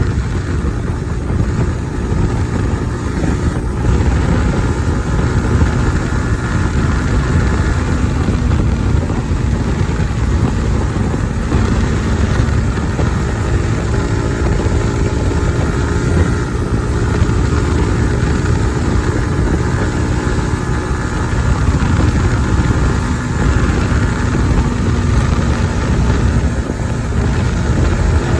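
Kawasaki ZX-10R inline-four engine running steadily with its stock exhaust while the motorcycle is ridden, under heavy wind rumble on the microphone.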